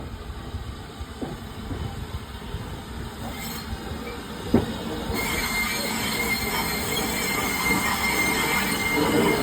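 Narrow-gauge train rolling through, growing louder, with a single sharp clank about halfway and then a steady high-pitched wheel squeal from the rails.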